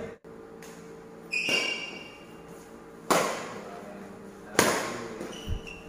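Badminton rackets striking a shuttlecock three times during a rally, sharp smacks about a second and a half apart, echoing in a large hall.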